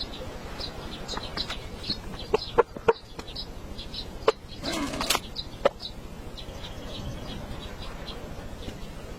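Rain falling steadily, with irregular sharp taps and a brief rustle about five seconds in, over many short high chirps.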